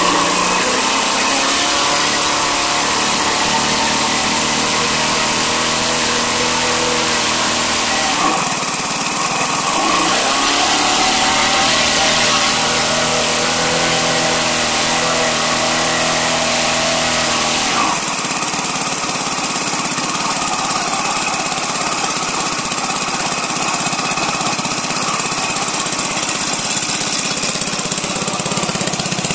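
A 57 cc single-cylinder four-stroke model gas engine running steadily and loudly while its throttle linkage is worked by hand. Its note changes about eight seconds in, dips briefly near ten seconds, and changes again near eighteen seconds.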